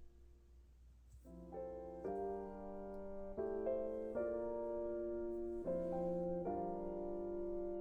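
Soft background piano music. Piano chords come in about a second in.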